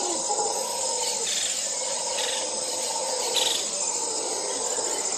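Insects shrilling steadily in the bush: a continuous high, even buzz, with three brief higher chirps spaced about a second apart.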